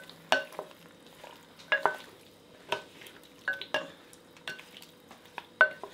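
Wooden spoon stirring squash in an amber glass cooking pot, knocking against the glass sides at irregular intervals, each knock ringing briefly.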